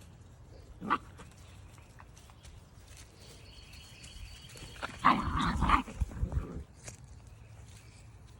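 Rhodesian Ridgeback puppies vocalising: one short yip about a second in, then a louder cluster of yips and barks lasting about a second and a half past the middle.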